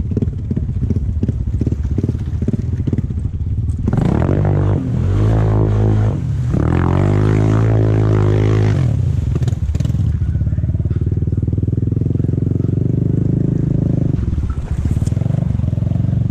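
ATV engine running steadily, then revved hard twice as the quad pushes through deep creek water, its wheels churning up spray; it settles back to a steady run, easing off briefly near the end.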